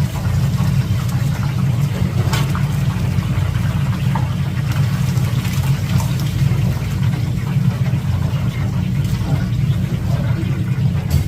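Whole chickens deep-frying in oil, a faint crackling sizzle heard over a loud, steady low machine hum.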